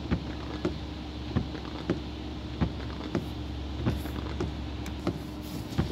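Inside a car waiting at a red light, the engine idles with a steady low hum while a sharp tick-tock clicking repeats evenly, about two clicks every second and a quarter, in the pattern of a turn-signal relay.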